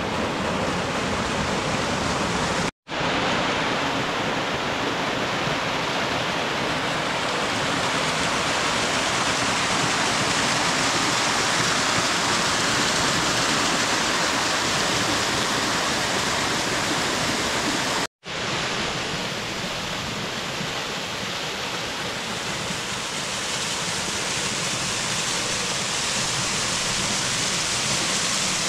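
Small mountain waterfalls and cascades rushing steadily over rock, a dense even roar of falling water. It breaks off for a moment twice, about three seconds in and again about two-thirds of the way through.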